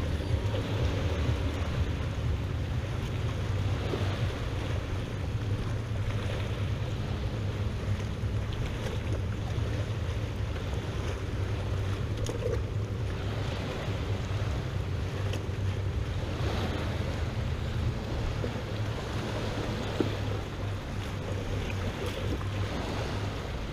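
Steady low wind rumble on the microphone, with small waves lapping against the pontoon boat.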